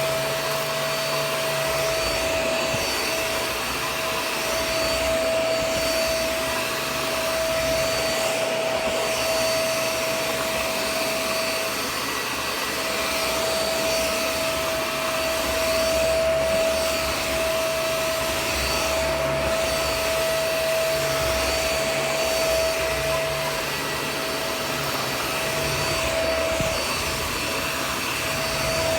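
Shark Vac-or-Steam vacuum running steadily on a rug, a continuous motor whine over airflow hiss, its sound shifting slightly every few seconds.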